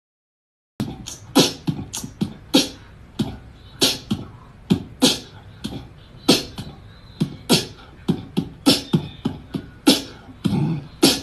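Beatboxing: a steady beat of vocal kick and snare sounds, with a strong hit about every second and lighter hits between, starting about a second in.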